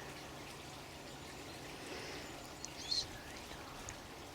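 Steady sound of running water, with a bird chirping briefly about three seconds in.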